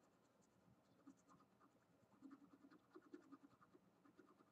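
Faint scratching of a soft 10B graphite pencil on drawing paper, in short irregular strokes, shading in a dark tone.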